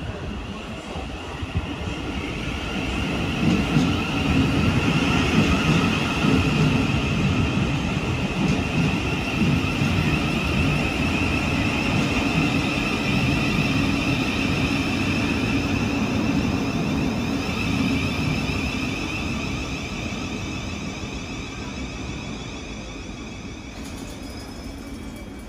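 Thameslink Class 700 electric multiple unit running into the platform and slowing: wheels rumbling on the rails under a steady high whine. It grows louder over the first few seconds as the cars pass close by, then fades gradually as the train draws to a stand.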